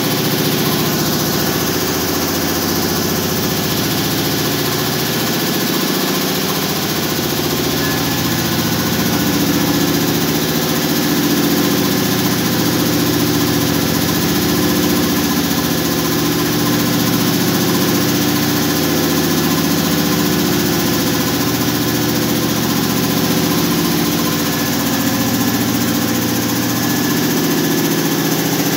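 Large twin-pump reciprocating air compressor running steadily: two finned multi-cylinder piston pumps belt-driven by a central electric motor, mounted on a horizontal receiver tank, with a continuous loud mechanical hum and clatter.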